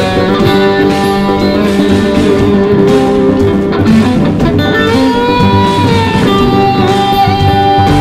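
Background music led by guitar, with held notes that bend in pitch in the second half.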